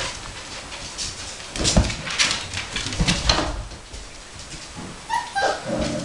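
Samoyed puppies and their mother at play: scuffling and knocking from paws and bodies, then about five seconds in a short whimper that falls in pitch.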